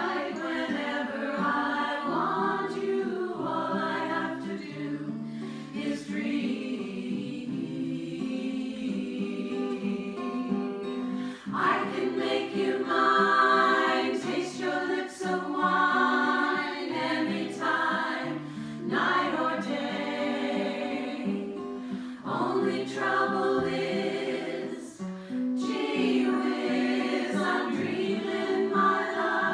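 A vocal group singing in harmony: several voices holding chords together in phrases, with a brief pause between phrases about twelve seconds in and again near twenty-five seconds.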